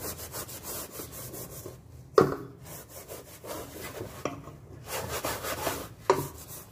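Kitchen sponge scrubbing burnt residue inside a metal pot by hand, rubbing back and forth in quick repeated strokes. A sharp knock sounds about two seconds in, and a smaller one near the end.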